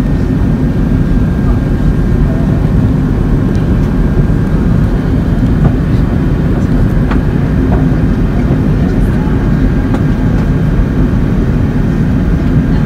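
Steady, loud cabin noise of an Airbus A380 in flight: a low rumble of engines and airflow, with a faint steady whine above it.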